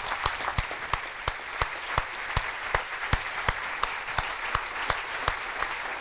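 Audience applauding, with one set of claps close to the microphone standing out above the rest at a steady three or so a second.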